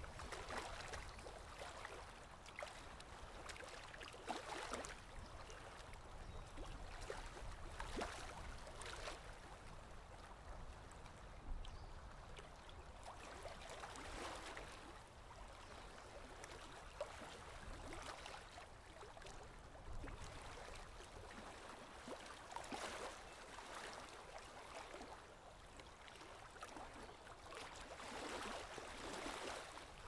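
Nature-sound ambience of running water: a steady wash that swells and fades every few seconds over a low rumble, with a couple of light clicks.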